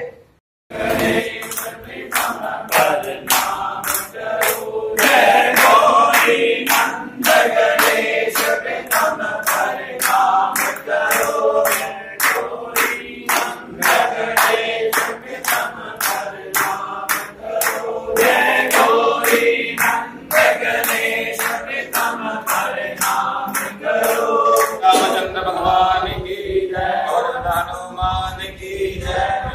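A group of worshippers singing a Hindu devotional hymn together, with steady rhythmic hand-clapping keeping the beat.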